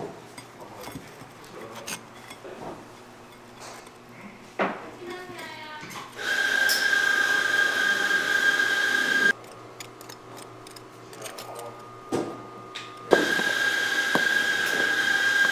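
A kitchen machine running twice, about three seconds each time, with a steady high whine and hiss that start and stop abruptly, with a few knocks of utensils in between.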